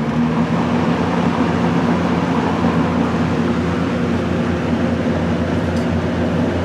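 1974 K Mart K223 box fan running on its high setting: a steady rush of air from its plastic blades over a low, steady motor hum. The freshly cleaned and re-oiled motor is running normally.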